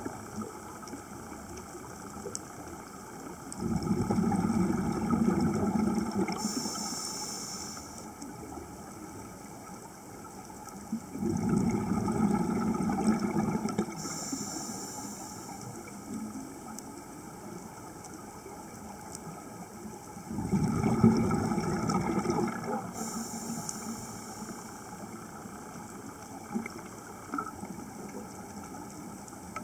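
Scuba diver breathing through a regulator underwater: three breaths, each a two-to-three-second gush of exhaled bubbles followed by a short hiss of inhalation through the regulator, about one breath every eight seconds, a slow, even breathing pace.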